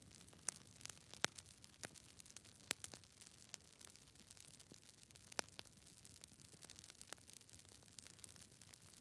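Near silence: faint hiss with scattered small clicks at irregular intervals.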